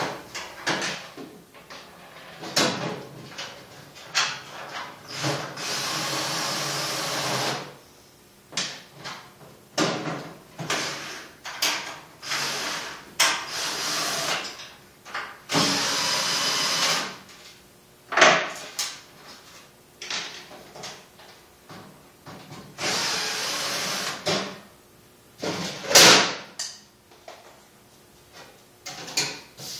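Workshop tool work: a power tool runs in steady bursts of one to two seconds, four or so times, between short knocks and clicks of parts being handled.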